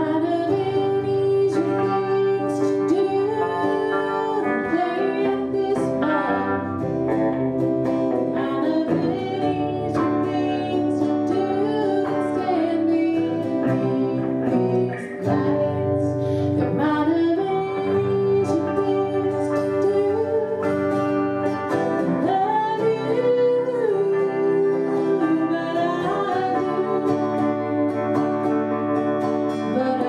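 A live song: a woman sings while strumming an acoustic guitar, and an electric guitar plays along.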